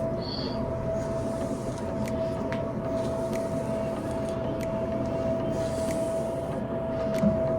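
An electric motor running steadily, with a constant whine over a rushing hum, and light clicks and taps now and then.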